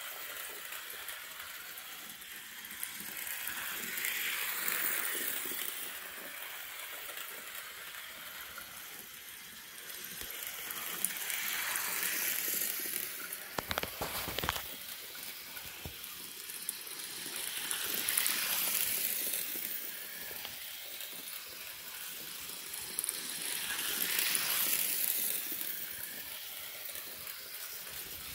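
Miniature HO-scale live-steam locomotive running on model track: a steady hiss and sizzle of escaping steam that swells and fades about every six to seven seconds as it circles past, with a brief run of sharp clicks about halfway.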